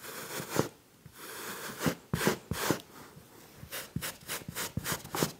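Hand-held pet hair remover brushed back and forth over a fabric dog bed: a series of short brushing strokes, one early, then a group of about four, then a quicker run of about six near the end.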